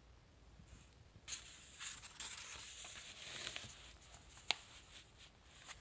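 Paper pages of a softcover book rustling as they are turned by hand, starting about a second in and trailing off, with one sharp click a little later.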